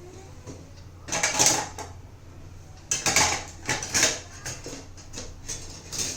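Kitchenware being handled: a scrape about a second in, then a run of clinks and knocks from about three seconds, as the pan, strainer and cup are readied for straining the tea.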